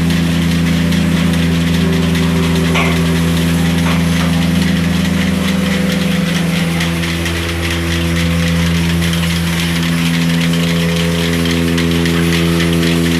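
A machine's engine running steadily, a constant low hum with an even hiss over it and a slight shift in pitch about seven seconds in.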